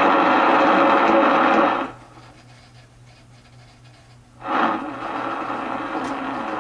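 Radio Shack DX-302 shortwave receiver's speaker giving out loud band noise while it is tuned across the band. The noise drops away almost to quiet about two seconds in, then another signal comes up a couple of seconds later and holds steady.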